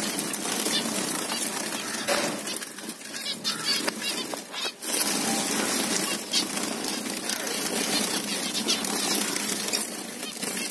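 A flock of zebra finches in an aviary calling and chattering: many short, high calls overlapping without a break.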